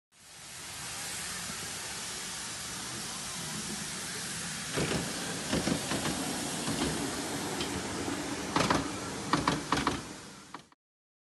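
Miniature railway train running, heard as a steady hiss with a scatter of sharp clicks and knocks from about five seconds in, the loudest near the end.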